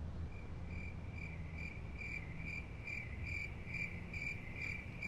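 Cricket chirping steadily, a little over two short, high chirps a second, starting about half a second in over a low hum: the stock cricket sound effect for an awkward silence.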